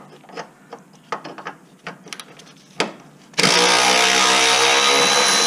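A few light clicks and taps of hand tools on metal, then about three and a half seconds in a handheld power tool starts and runs steadily, loud, spinning loose a bolt on the lower control arm guard.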